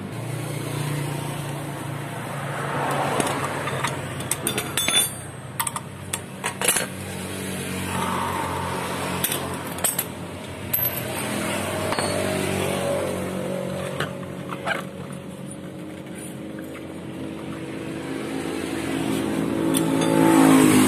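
Scattered metal clicks and clinks of tools and parts during disassembly of a Honda Vario 150 scooter's CVT, over a steady motor vehicle engine hum that grows louder near the end.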